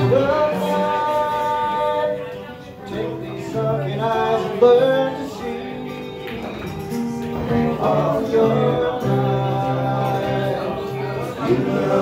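Live acoustic band music: a man sings into a microphone over acoustic guitar accompaniment, with a short break between sung phrases about two to three seconds in.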